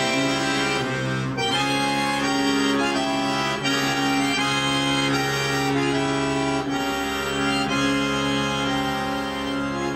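Bayan (Russian chromatic button accordion) playing loud, sustained full chords that change every second or two.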